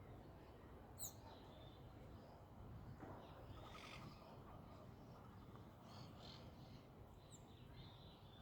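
Faint birds chirping and calling, with two quick high downward-sweeping calls, one about a second in and one near the end, over a quiet outdoor background.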